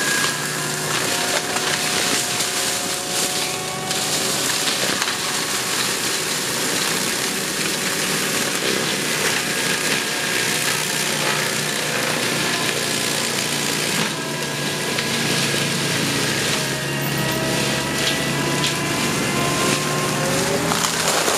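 Forestry mulcher at work, its rotor head grinding through wood and brush over the steady running of the machine's engine. The noise is dense and continuous, with the engine note wavering slightly under load.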